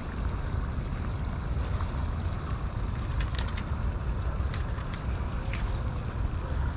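Wind on the microphone: a steady low rumble, with a few faint clicks.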